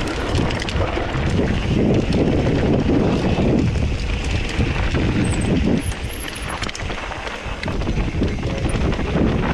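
Mountain bike riding down dirt and rocky singletrack: wind buffeting the camera microphone over tyre noise on dirt and loose stones, with frequent clicks and rattles from the bike.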